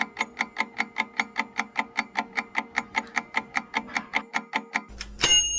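Countdown-timer ticking sound effect, rapid and even at about seven ticks a second, stopping near the end, followed by a ringing chime as time runs out.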